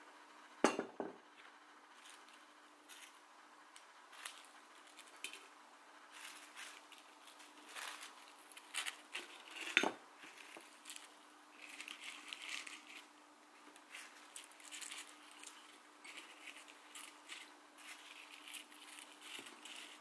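Dried rose heads and buds dropped into a glass jar, making light, dry crackles and taps against the glass, with a sharper glass clink about a second in and another near the middle.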